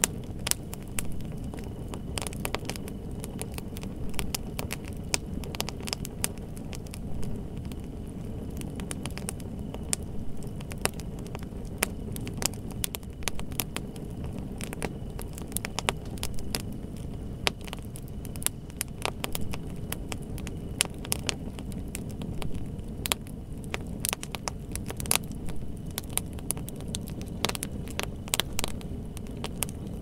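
Wood fire crackling, with irregular sharp pops and snaps over a steady low rumble.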